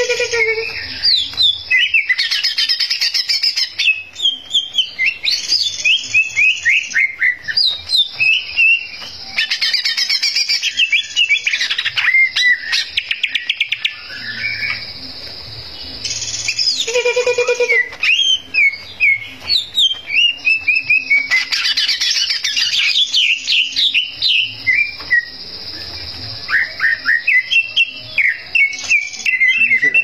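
Male cucak ijo (green leafbird) singing hard: long, rapid runs of varied whistled and chattering notes that sweep up and down, broken by short pauses every few seconds.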